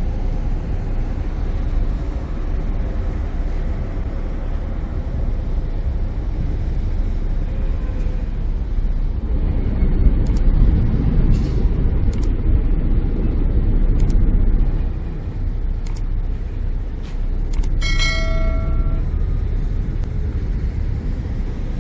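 Ferry engine and propellers running with a steady low rumble while the vessel comes in to berth. The rumble swells from about ten seconds in and eases a few seconds later. A few sharp knocks are heard, and a short ringing tone sounds near the end.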